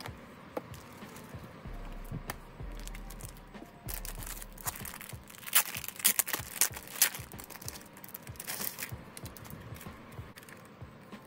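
Packaging crinkling and tearing as it is opened by hand, with a dense run of crackles in the middle, over quiet background music.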